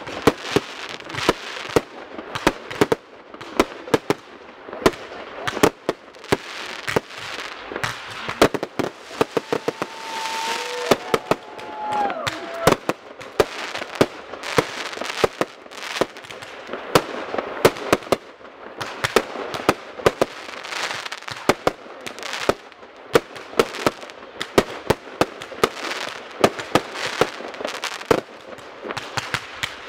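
Fireworks display: aerial shells bursting one after another with sharp, irregular bangs, several a second, over continuous crackling from the bursting stars. The crackle thickens about ten to thirteen seconds in.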